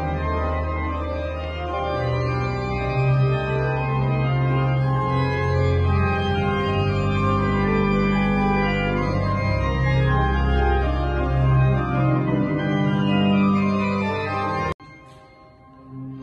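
Pipe organ playing slow, sustained chords in a large stone church, the bass notes shifting every second or two. It cuts off suddenly near the end, then comes back quieter.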